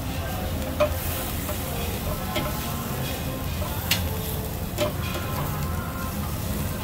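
Beef galbi sizzling on a wire grate over charcoal, with metal tongs clicking sharply against the grate about four times as the ribs are turned and moved.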